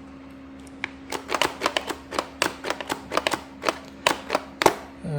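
Rapid, irregular plastic clicks from a DeWalt FlexVolt battery chainsaw's trigger and lock-off button being worked over and over, with no motor sound. The saw won't run because its chain brake is still engaged.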